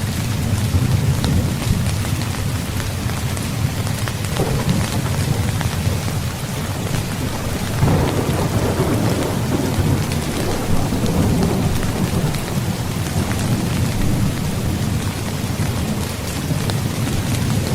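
Steady rain with thunder: a short crack about four seconds in, then a louder clap near the middle that rolls on as a long low rumble.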